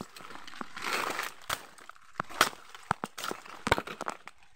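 Footsteps pushing through dense tall grass, dry leaves and stalks crunching and snapping underfoot as the blades rustle against the body. Irregular sharp snaps, with a longer rustle about a second in.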